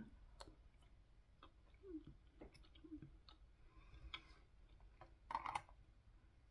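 Faint chewing of a mouthful of kiwi fruit: soft, wet mouth clicks scattered through, with a short louder burst a little after five seconds in.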